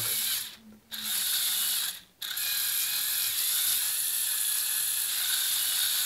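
Lego Technic bulldozer's electric motors and gear train running its tracks, with a steady ratcheting click; it cuts out briefly twice, about half a second and two seconds in. The clicking is the small cogs in the middle of the differentials jumping their teeth under load, which the builder says has already broken two of them.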